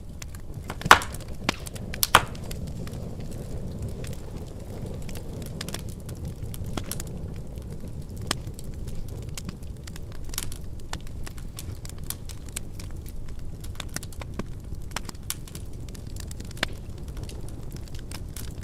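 Wood fire crackling in a fireplace: a steady low rumble of burning with scattered sharp pops and snaps. The two loudest pops come about one and two seconds in.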